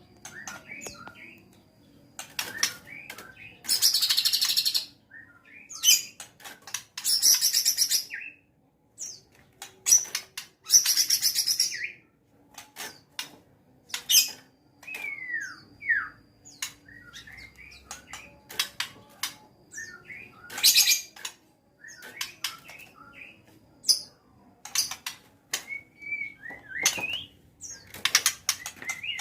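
White-rumped shama (murai batu) in full song: a long, varied run of short whistled notes and falling glides, broken every few seconds by loud, harsh rasping bursts.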